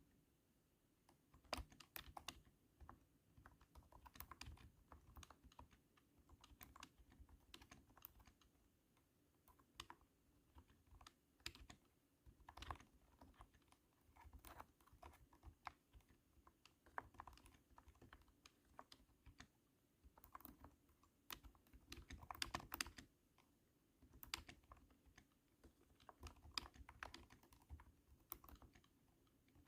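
Typing on a cat-shaped keyboard, with super thunky keystrokes coming in irregular runs separated by short pauses.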